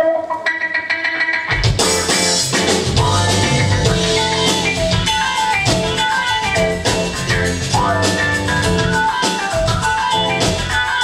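Live rock band playing: electric guitar alone at first, then the drum kit and bass guitar come in a little under two seconds in and carry on with a steady beat under a melodic lead line.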